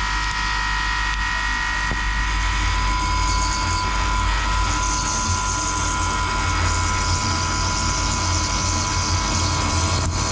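A 9/16-inch solid carbide drill boring dry, without coolant, into a brass workpiece spinning at 3000 rpm on a Puma TT2100 CNC lathe. It makes a steady whine over a low machine hum, with a hiss of cutting and flying chips.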